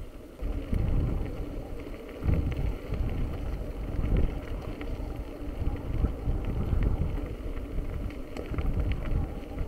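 Gusty wind buffeting the microphone, a rumbling noise that rises and falls irregularly.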